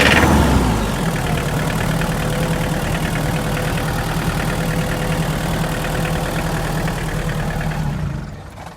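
Hyundai Porter's diesel engine idling with the knock that has persisted even after an engine replacement, its cause still unknown. The engine sound swells briefly at the start, then stays steady and dies away near the end.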